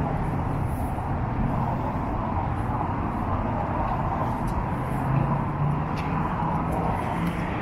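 Busy city street ambience: steady traffic noise with car engines running past, one engine's low hum swelling about five seconds in.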